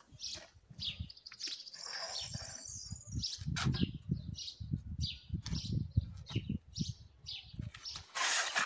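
Small birds chirping and twittering, with one longer high trill about two seconds in, over irregular low thumps and a short burst of noise near the end.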